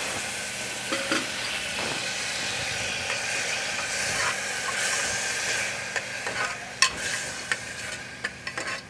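Spiced tomato masala sizzling in ghee in a pressure cooker while a spoon stirs it. The sizzle eases about six seconds in, and the spoon clicks and taps against the pot several times near the end.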